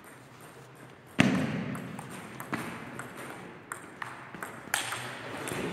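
Table tennis rally: the ball clicks sharply off the bats and the table in a quick series of strikes, the loudest about a second in. Each click echoes in a large sports hall.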